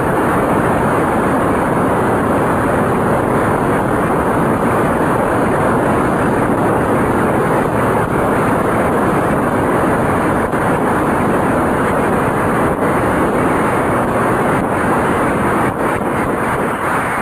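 An audience applauding steadily and densely, then dying away near the end.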